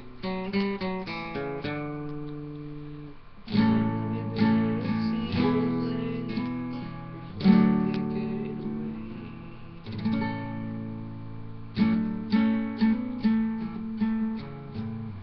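Nylon-string classical guitar played with the fingers: quick picked notes at first, then chords strummed every second or two and left to ring. The playing ends just before the close.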